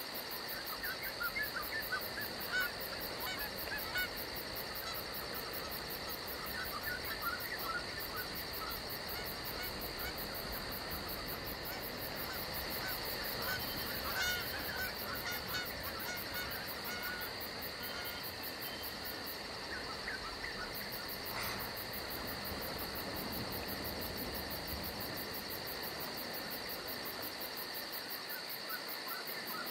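Many short bird calls coming in loose clusters, over a steady high-pitched insect drone.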